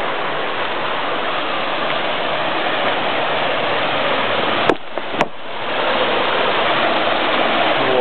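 Steady rushing and splashing of a creek gushing out of a cave mouth in a rock bluff, the water falling down a chute inside the rockface. Two sharp clicks about half a second apart come near the middle.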